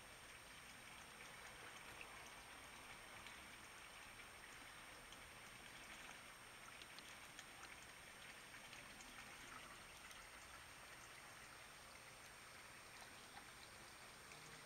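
Faint, steady trickle of water in a pond filter system's tubs, with small scattered drips.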